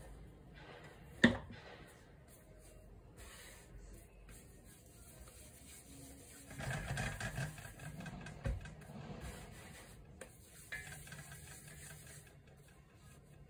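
Hands kneading and rubbing soft steamed-bun dough on a floured wooden board: quiet rubbing and patting, louder for a few seconds around the middle. One sharp knock about a second in is the loudest sound.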